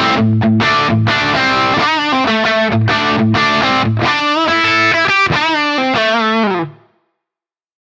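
Electric guitar with overdrive, played through a J.Rockett Jeff Archer Klon-type overdrive pedal used as a boost into a Marshall JTM45 amp. Short chopped chords give way to held notes with bends and vibrato; a last note bends down and stops about seven seconds in.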